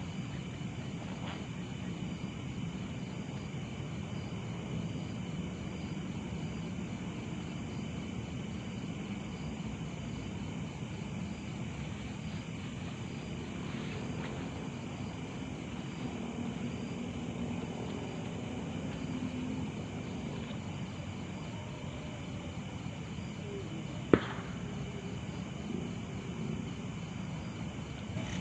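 Night insects chirping steadily in an evenly repeating high pulse over a low, steady rumble, with one sharp click near the end.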